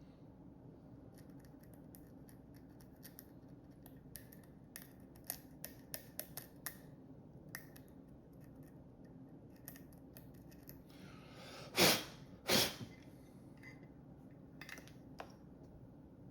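Small hand tools and parts handled at a workbench, with scattered light clicks, then two loud snips of a cutting tool about a second apart near the end.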